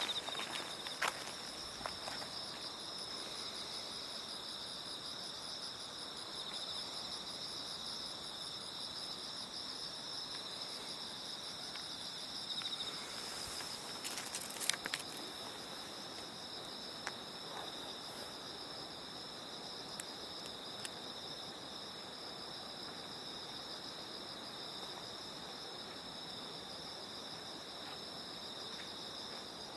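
Autumn night insects, crickets among them, trilling steadily in two unbroken pitches, with a fainter higher trill that stops a little before halfway. A few short taps sound around halfway through.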